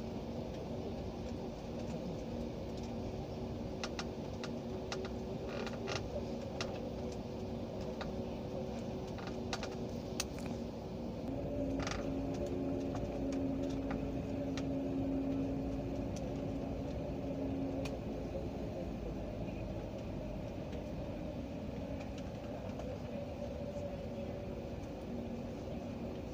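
Airliner cabin during taxi: the steady hum and rumble of the jet engines, with a few light clicks and creaks in the first ten seconds. About halfway through, the engine hum rises and grows louder for several seconds, then settles back.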